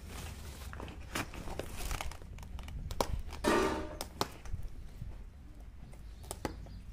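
A courier bag crinkling and rustling as it is handled and pulled open, with scattered clicks and one louder burst of crinkling about halfway through.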